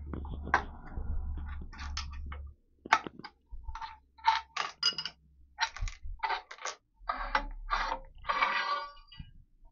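Steel hold-down clamps and nuts clinking and knocking on a milling machine table as a steel plate is unclamped: a scattered series of short metallic clicks. A low hum stops about two and a half seconds in, and near the end there is a short scrape as the plate slides on the table.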